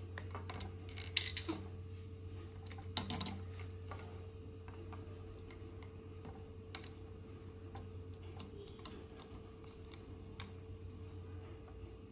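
Light, scattered clicks and taps of small plastic Lego pieces being handled, with a couple of sharper clicks about one and three seconds in, over a faint steady hum.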